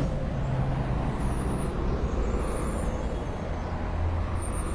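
Diesel earthmoving machinery working: excavators and a dump truck running steadily with a low engine hum. A faint high whine comes and goes three times.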